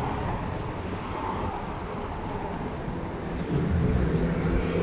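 City street traffic noise, with a vehicle's engine rumbling louder from about three and a half seconds in.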